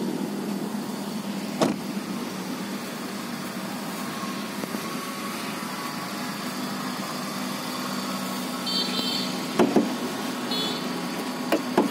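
Kia Cerato's 1.6-litre petrol four-cylinder engine idling steadily, with a few sharp knocks about two seconds in and again near the end.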